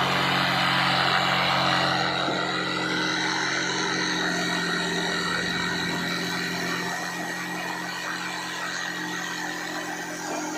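A machine running steadily with a motor hum, its louder noisy part easing off after about two seconds.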